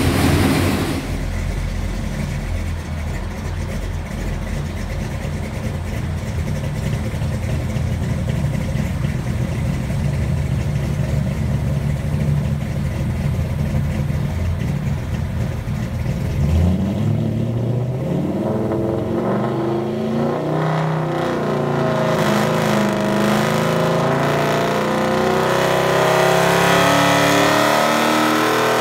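Ford 427 Windsor small-block V8 with FAST EZ EFI running on an engine dyno, heard through the test cell's tall exhaust stacks. A steady low rumble runs through the first half, then the revs climb in a long rising pull through the second half.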